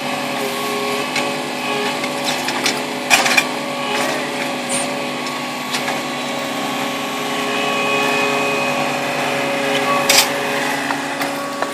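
Engine of a mechanized paver-laying machine running steadily with a humming tone, while a few sharp clacks sound as concrete pavers are set, the loudest about three seconds in and again near ten seconds.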